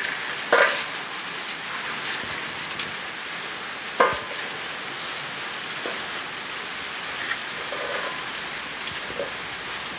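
Steady rain falling, with scattered light knocks and rattles and one sharper knock about four seconds in.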